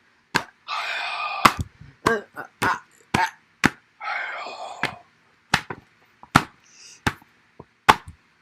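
Fighting-game hit sound effects: about a dozen sharp smacks and thwacks at an uneven pace, with two longer noisy sounds about a second in and about four seconds in.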